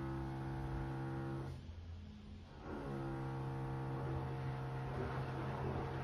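Hotpoint Ariston AQ83D washing machine tumbling during its softener rinse. The drum motor hums steadily and stops about a second and a half in. After about a second's pause, the usual break before the drum turns the other way, it starts again with a brief rise in pitch, and water and laundry swish in the drum.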